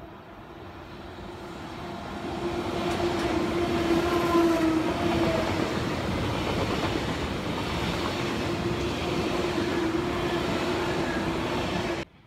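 An SBB ICN (RABDe 500) electric tilting train running past: a rushing of wheels and air that builds over the first few seconds, carrying a steady electric hum, with a few higher tones falling in pitch as the front goes by. The sound cuts off suddenly near the end.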